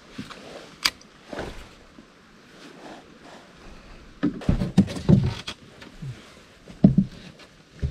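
Knocks and thumps against a small wooden boat's hull, a cluster about four to five and a half seconds in and another near seven seconds, with one sharp click about a second in.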